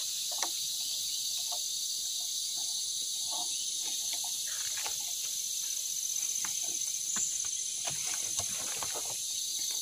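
Steady high-pitched chorus of insects in the forest, with scattered faint clicks and knocks of metal parts being handled on a chainsaw's bar clamp.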